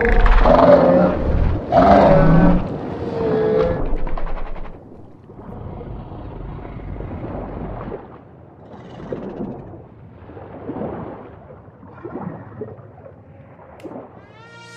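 Sound-effect calls of a giant prehistoric marine reptile (Liopleurodon): loud, deep, pitched growling calls for the first four seconds, then fainter calls that swell and fade every second or two.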